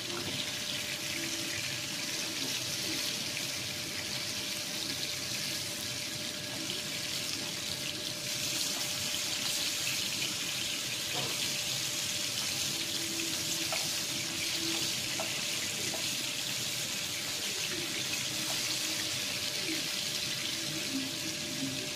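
Pieces of fish frying in hot oil in a non-stick pan, a steady sizzle, with a few light taps of a spatula as the pieces are turned over.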